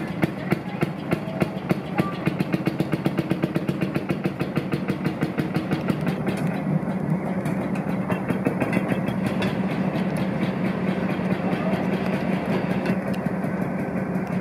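Fairmont track inspection speeder's engine pulling away. Its firing pops are distinct and spaced out at first, then come quicker and quicker as it picks up speed, until about halfway through they run together into a steady engine note.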